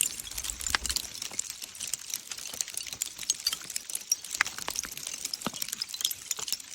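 Hailstones striking slate rock: a dense, irregular patter of sharp clicks and ticks, with a few louder cracks among them.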